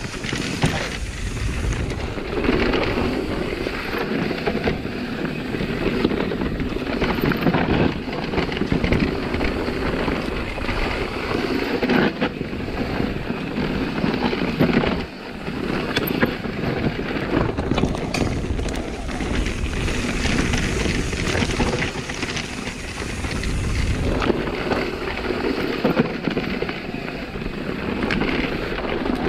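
Nukeproof Megawatt electric mountain bike descending a dirt forest trail at speed: tyres rumbling over dirt, rocks and roots, the bike knocking and clattering on the bumps, with wind buffeting the microphone. There is a brief lull about halfway through.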